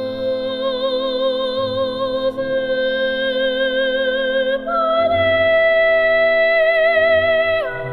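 Background music: a slow melody of long held notes with vibrato, which change pitch about halfway through and again near the end.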